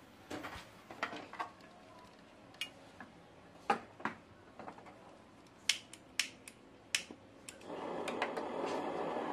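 Scattered light clicks and taps, then about three-quarters of the way in a portable gas torch is lit and its flame starts a steady rushing hiss that keeps going.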